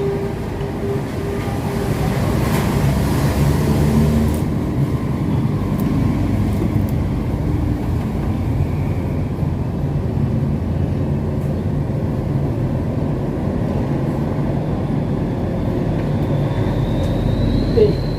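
Steady low rumble of passing road traffic, with a thin high squeal rising in near the end.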